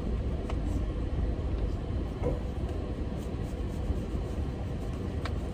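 Steady low rumble with a few faint clicks, and no speech.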